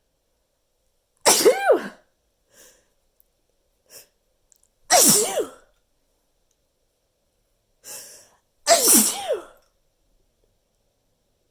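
Three loud, deliberately exaggerated human sneezes, about three and a half seconds apart, each ending in a voiced "choo". Short, much quieter sounds come between them.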